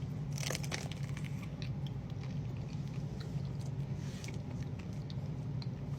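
Close-miked eating sounds of someone biting into and chewing a soft raspberry mousse cake: a cluster of wet clicks and smacks in the first second, then scattered small mouth clicks as the chewing goes on.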